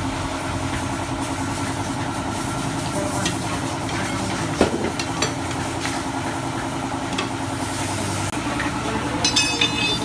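A steady mechanical hum, like an engine or motor running, continues throughout. A single knock comes about halfway, and a quick run of metallic clinks sounds near the end as a motorcycle tyre is worked off its rim with a metal lever.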